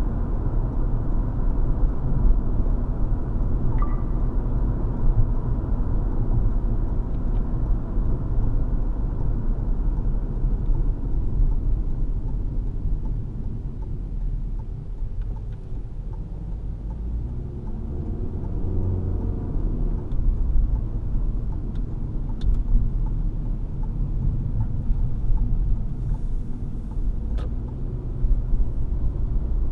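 Cabin noise of a 2018 Toyota C-HR with its four-cylinder engine and CVT, driving on the road: a steady low rumble of engine and tyres, easing slightly about halfway through.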